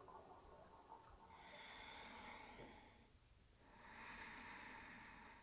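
Faint, slow breathing: two long breaths, the first starting a little over a second in and the second following after a short pause.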